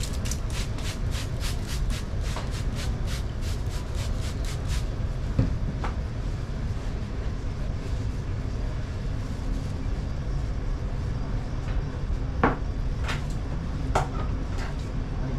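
Hand-held trigger spray bottle squirted in quick succession, about four sprays a second for roughly the first five seconds. Then a few scattered clicks and taps follow over a steady low background rumble.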